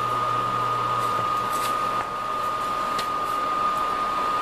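Little Giant VCM-15UL condensate pump running, a steady whirring with a constant high whine, as it pumps water out through its discharge line. A lower hum drops out about a second in.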